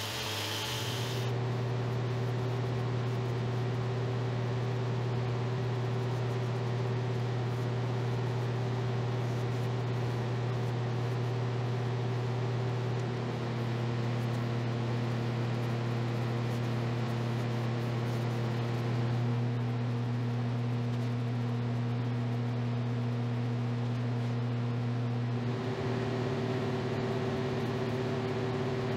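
A steady motor hum with a few steady tones that shift slightly in pitch a few times.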